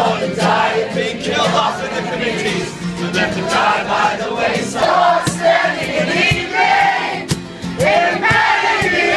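A man singing live over a strummed acoustic guitar, with a crowd singing along with him.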